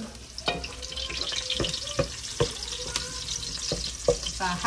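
Food frying in oil in a large aluminium pot, a steady crackling sizzle, stirred with a wooden spoon that knocks against the pot several times.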